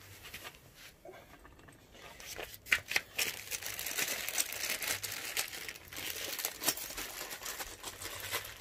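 Plastic packaging crinkling and rustling, starting about two seconds in and going on with a dense crackle, with a couple of sharp clicks near its start.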